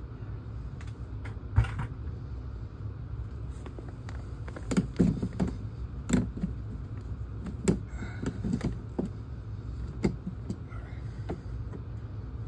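Hands working CPVC water pipe under a floor: scattered knocks, clicks and rustling as the pipe is moved among insulation, over a steady low hum.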